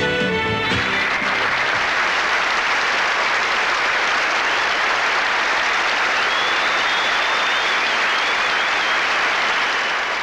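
Audience applauding right after the band's last chord stops, less than a second in, with a high wavering whistle from the crowd over the applause near the middle.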